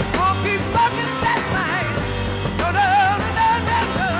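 Live hard rock from a three-piece band: electric guitar, bass and drums playing, with wordless wavering vocal wails over the top.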